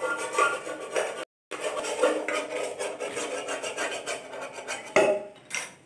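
A metal pot being scrubbed with a sponge and knocking against the sink and other dishes, a run of scraping and clattering. The sound cuts out completely for a moment about a second in.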